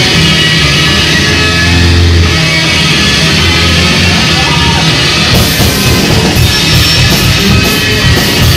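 Live rock band playing loud, with guitar and drums. About five seconds in, the drums change to a fast, even pounding beat with cymbals.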